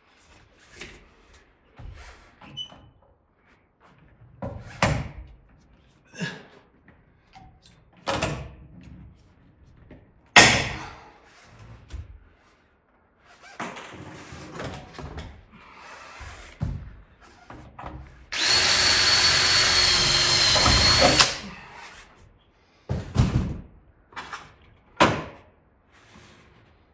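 Scattered knocks and thuds of hand work on wooden framing. About two-thirds of the way through, a power drill runs for about three seconds with a steady high whine, then a few more knocks follow.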